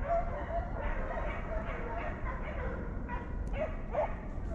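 A pack of deer-hunting hounds baying, several voices overlapping in short, wavering cries.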